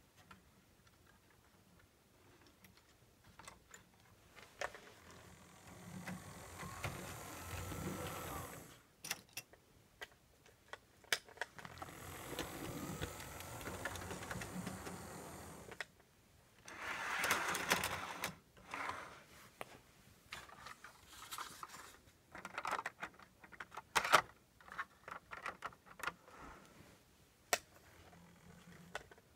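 Model Alco S-2 switcher locomotive running on its track: its small electric motor whirring in two steady stretches, then the wheels and coupled passenger car clicking and clattering over the rails in the second half.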